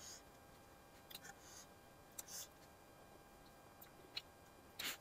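Quiet eating sounds: scattered soft clicks and short crackles of mouths chewing and fingers tearing dry roti, over low room tone. The loudest crackle comes near the end.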